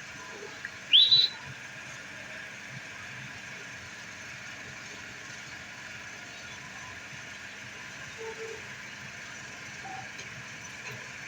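Rose-ringed (green ring-necked) parakeet giving a short, shrill call that rises in pitch, about a second in and again at the very end.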